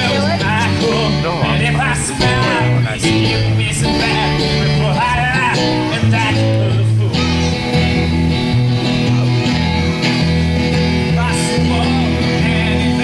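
Amateur rock band playing live: electric bass, acoustic guitar and drums, with a wavering lead melody over them for the first half, then steadier held chords.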